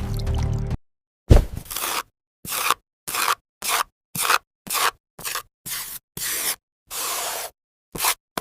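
Background music cuts off, then about a dozen short, separate scraping or rubbing noises follow, with dead silence between them. The first one opens with a loud thud.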